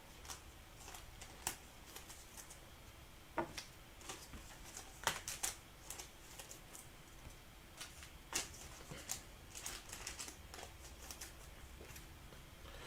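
Trading cards being handled and sorted: faint, irregular light clicks and taps of cards and hard plastic card cases.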